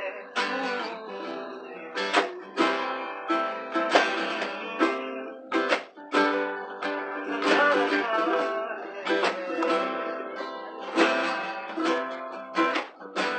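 Acoustic guitars and a ukulele strummed together in a steady rhythm, an instrumental passage with no singing.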